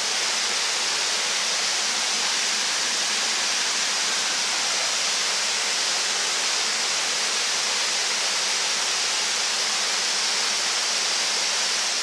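Waterfall with a strong flow pouring steadily, a constant hissing rush of water.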